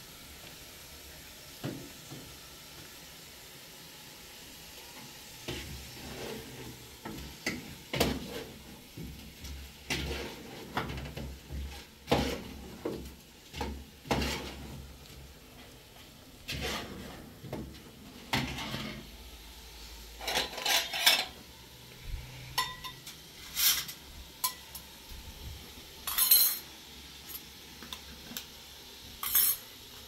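Pots, dishes and metal utensils knocking and clinking against each other in irregular handling, with a few sharper ringing clinks in the second half.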